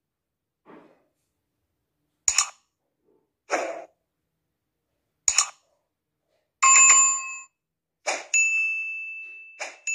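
Sound effects of an animated subscribe-button outro: a few sharp mouse clicks and short swishes, a brief chime of several tones about two-thirds of the way in, then a notification-bell ding that rings on and slowly fades.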